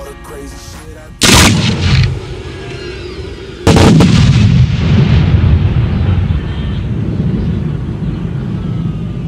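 Fireworks display shells going off: a loud bang about a second in and another about two and a half seconds later, each followed by a long low rumbling echo.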